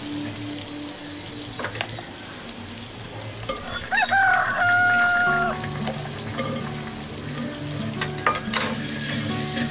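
Oil sizzling with mustard seeds and green chillies in a pot, stirred with a wooden spatula, with a few sharp knocks near the end as green peas go in. A rooster crows loudly about four seconds in, one rising call ending in a long held note.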